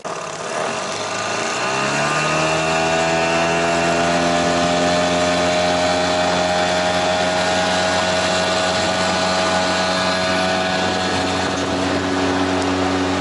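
Small 5 hp tiller outboard motor driving the boat: it revs up over the first couple of seconds, its pitch rising, then runs at a steady pitch at cruising throttle.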